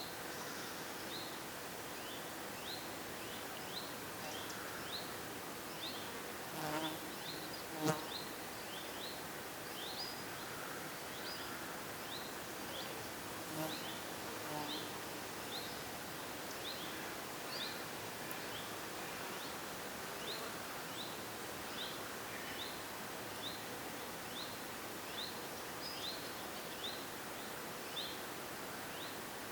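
Woodland ambience: a steady series of short, high chirps, about one and a half a second, over a faint constant hiss. About seven to eight seconds in, a brief louder call with several pitches stands out.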